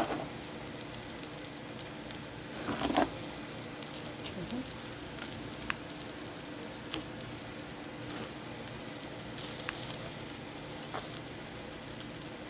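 Pancit noodles sizzling in a pan, with a steady frying hiss. A louder scraping rush comes about three seconds in, and a few sharp clicks are scattered through.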